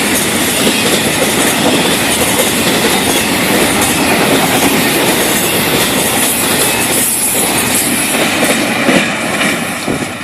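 Long freight train's cars rolling past: steady, loud wheel-on-rail noise with clickety-clack, dropping off just before the end as the last of the train clears.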